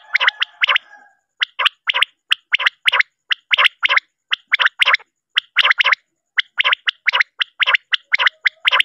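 Quail calling: a long run of short, sharp notes, mostly in quick pairs, at about two to three groups a second. This is a recorded call meant to lure quail for hunting.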